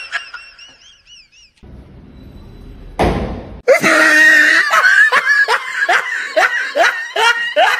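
A person laughing hard in quick repeated bursts, about three a second, starting about four seconds in. Just before it comes a short loud rush of noise.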